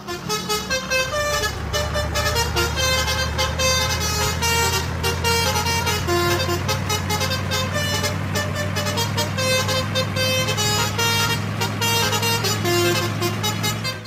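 A dubbed-in truck engine sound effect: a steady low engine hum, with horn toots and changing higher tones over it.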